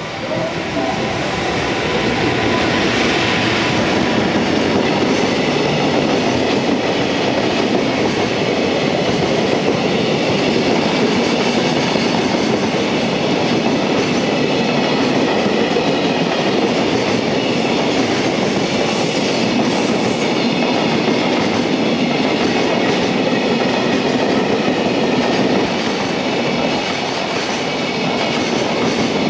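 Freight train passing close by: an EF210 electric locomotive goes past at the start, then a long string of container flat wagons rolls by with a steady, loud rumble and clatter of wheels on rail.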